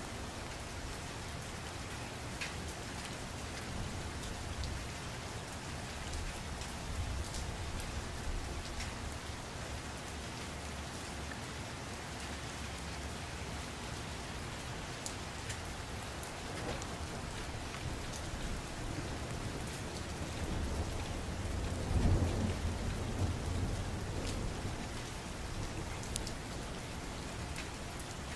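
Steady rain falling, with a low rumble of thunder swelling and fading late on.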